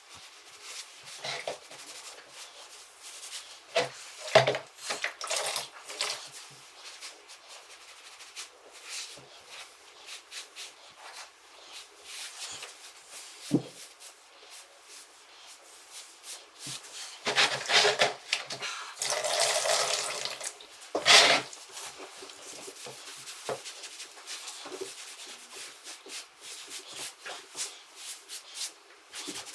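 Water splashing and dripping amid scattered rubbing and knocks, as a grout sponge is rinsed in a bucket and wiped over tile during grout cleanup. The loudest water splashing comes about two-thirds of the way through.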